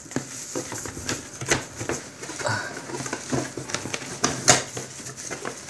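Bubble wrap crinkling and a cardboard box rustling and knocking as they are handled, in irregular crackles and clicks, the sharpest about four and a half seconds in.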